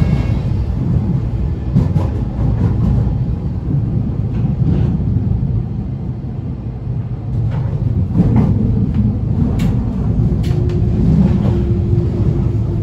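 Inside a Berlin S-Bahn class 485 electric train under way: a steady low rumble of wheels on the track with a few sharp clicks. A steady hum comes in near the end.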